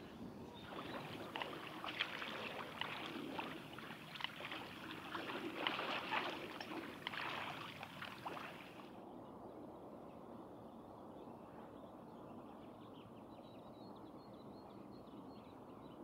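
Outdoor field recording from a bird clip: dense, irregular clicks and scratchy sounds for about nine seconds, then an abrupt change to quieter ambience with faint high notes repeating.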